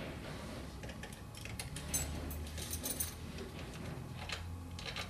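Lock-picking tools working inside a mortise lock: faint scraping and light metallic clicks, bunched about two to three seconds in and again near the end, as the lock is picked open without a key.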